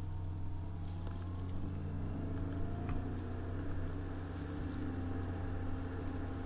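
Steady low background hum with a few faint clicks of a computer mouse as hatch patterns are picked.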